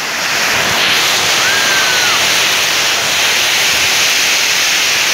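Heavy rain pouring down onto wet paving: a loud, dense, steady hiss. A short high tone rises and falls once about a second and a half in.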